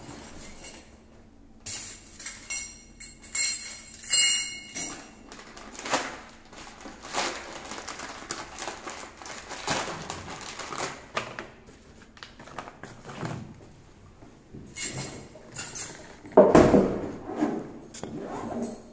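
Plastic carrier bag rustling and crinkling as it is pulled out of a backpack and handled, followed by scattered light knocks and clatter of small items being handled, with a louder bump near the end.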